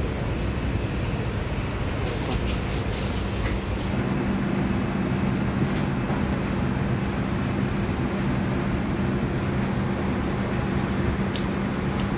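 A steady low mechanical hum with an even background noise, the hum growing a little stronger about four seconds in. A brief hiss runs between about two and four seconds in.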